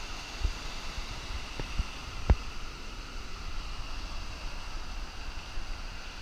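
Ocean surf breaking and washing up a sandy beach: a steady rush of waves and foam. A few short low thumps cut through it, the strongest about two seconds in.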